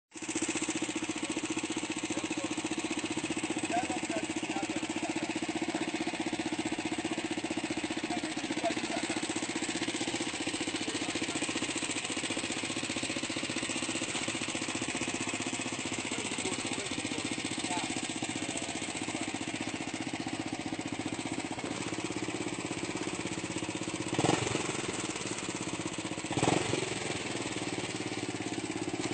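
Helicopter running steadily, an even mechanical drone with a fast flutter, with two brief louder thumps near the end.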